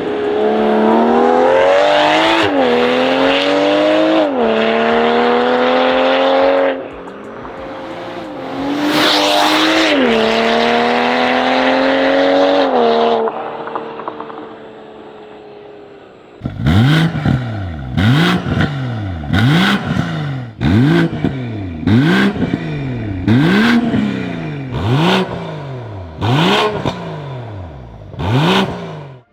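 BMW M440i's B58 turbocharged inline-six with Armytrix catless downpipes and valvetronic exhaust, accelerating hard twice with the pitch rising and dropping at each upshift, then coasting down. From about the middle onward it is revved in about a dozen quick throttle blips, roughly one a second.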